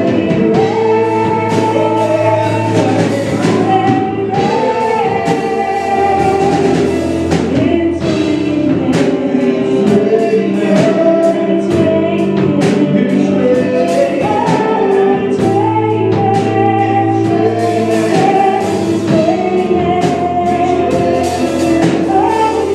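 Gospel praise team singing together over instrumental accompaniment with a steady beat.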